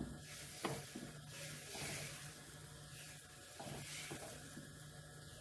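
Crepe batter sizzling on a hot flat pan while the back of a steel ladle spreads it in circles, a soft scraping hiss with a light tap of the ladle about half a second in and a few softer knocks near the end.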